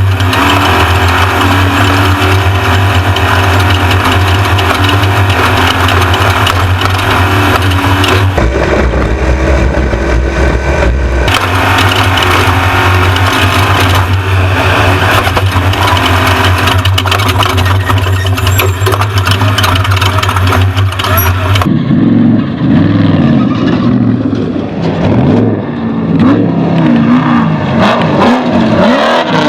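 Off-road race truck engine running hard under load, with a steady drone and dense road and rattle noise. About 22 seconds in the hiss drops away and the engine note rises and falls as it revs up and down.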